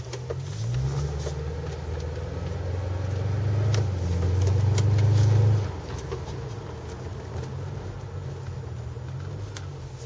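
The 2004 Pontiac GTO's 5.7-litre LS1 V8 and exhaust, heard from inside the cabin, pulling under acceleration. The engine note rises and grows louder for about five seconds, then drops off suddenly as the throttle is eased, and runs on steady and quieter.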